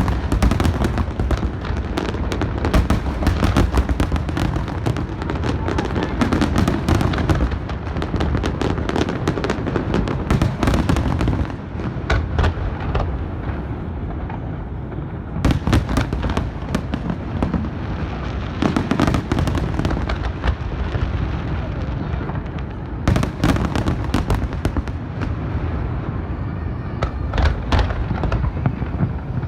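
Aerial fireworks going off in rapid volleys of booms and crackling over a constant low rumble. The volleys thin out for a few seconds about halfway through, then start again in several dense clusters.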